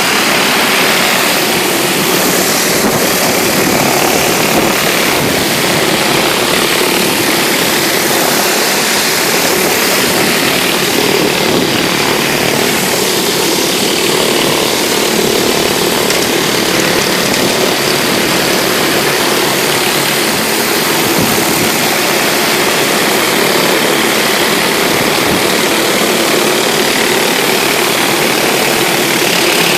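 Pressure washer running steadily, its engine drone mixed with the hiss of a high-pressure water jet on concrete during cold-water cleaning.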